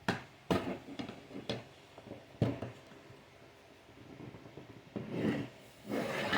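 Hard plastic toy pieces clicking and knocking as a small diorama and its figures are handled and fitted together: about five sharp clicks in the first two and a half seconds, then softer rubbing and handling near the end.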